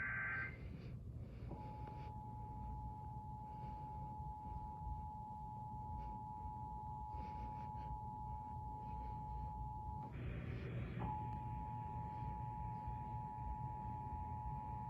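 Emergency Alert System broadcast: the last of the buzzy data-burst header cuts off, then the steady two-tone EAS attention signal sounds. About ten seconds in, the tones break for roughly a second of crackle, then resume, all over a low background hum.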